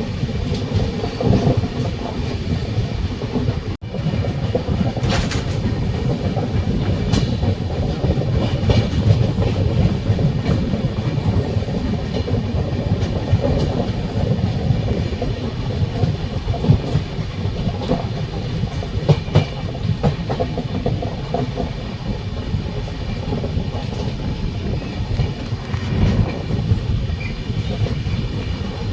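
Train running along the track: a steady low rumble with irregular sharp clicks of wheels passing over rail joints. There is a brief break about four seconds in, after which the same running sound continues.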